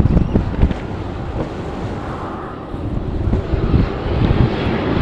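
Strong wind buffeting the microphone over the engine noise of an airliner, which grows louder over the last couple of seconds.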